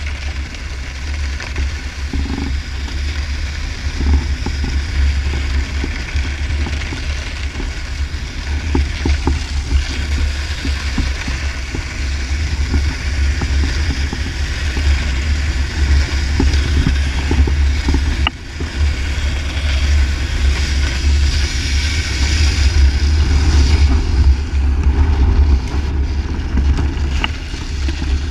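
Strong wind buffeting the action camera's microphone in a continuous low rumble, over the hiss of a snowboard sliding across ice. The hiss grows louder a little past the middle and eases off near the end.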